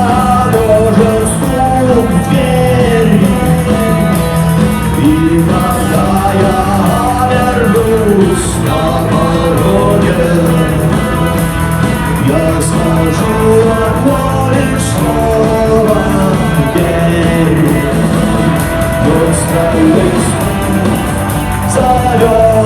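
Rock band playing live, with guitar and a melodic lead line that bends up and down in pitch over a steady bass.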